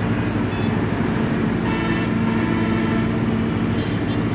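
Steady low mechanical drone with a constant hum, over the noise of city road traffic; a vehicle horn sounds briefly about two seconds in.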